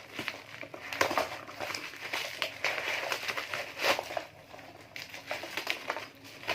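Parcel packaging being opened by hand: irregular crinkling and rustling with a few sharp crackles and knocks, the loudest about a second in and again near four seconds.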